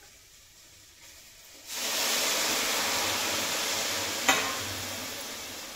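Water poured into a hot steel kadai of rice and beetroot frying in oil: a sudden loud sizzle about a second and a half in that slowly dies down. A sharp metal clink about four seconds in.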